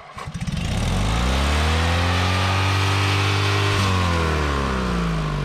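Riding lawnmower's engine, its air box shot through, revving up and running fast as the mower drives off, then dropping in pitch about four seconds in. It sounds angry ("She's pissed").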